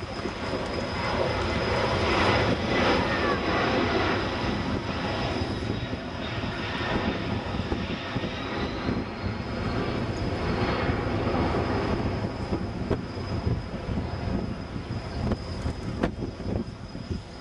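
The four Pratt & Whitney F117 turbofan engines of a Boeing C-17 Globemaster III flying past: a steady jet rumble with a thin high whine. It is loudest a couple of seconds in and swells again about ten seconds in.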